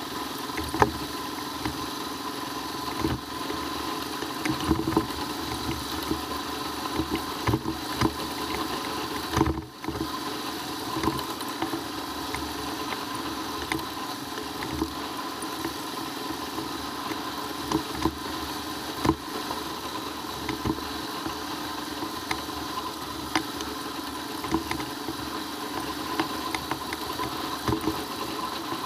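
Royal Enfield Himalayan's single-cylinder engine running steadily while riding a rough dirt road, with frequent knocks and rattles as the bike jolts over the stony surface. The sound dips briefly about ten seconds in.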